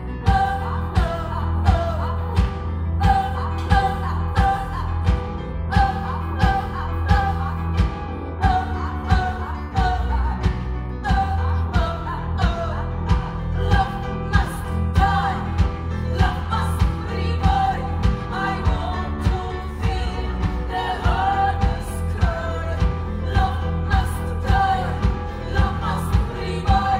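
Live band music: women singing over a steady drum beat, with double bass and keyboard in the band.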